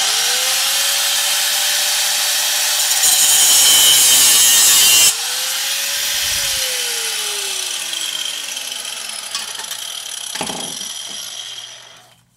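Angle grinder cutting off the excess length of a toilet closet bolt so the bolt cap will fit. The motor whine rises as it spins up, the grinding gets louder for about two seconds as the disc bites through the bolt, then after a brief second spin-up the whine falls steadily as the grinder winds down.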